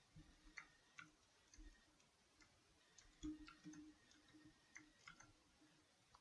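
Faint, irregular clicks of a computer mouse and keyboard, about a dozen over the few seconds, one a little louder with a dull thump about three seconds in.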